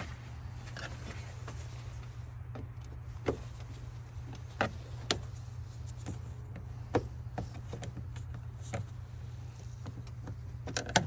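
Scattered sharp plastic clicks and knocks from the air intake tube and its clips being worked loose by hand, over a steady low hum.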